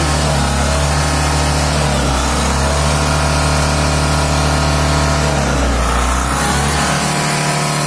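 Tata Ace Mega's two-cylinder turbo-diesel engine running and being revved: the pitch rises and holds, drops back about five and a half seconds in, then climbs again near the end. The turbo hose pipe, which had come off, has just been refitted with a spring clamp, and the black smoke is gone.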